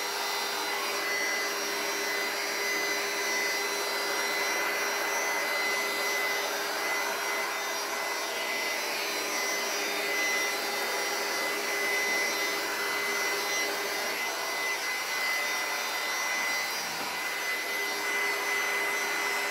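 Handheld electric heat gun running steadily, a constant rush of air with a high whine from its fan, as it heat-shrinks plastic wrap.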